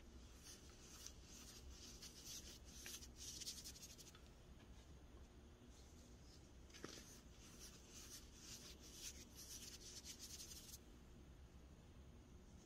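Faint crisp crackling and scratching of pink-dyed baking soda being crushed and rubbed between fingers, pressed blocks crumbling into soft powder. It comes in two stretches of a few seconds each with a short pause between.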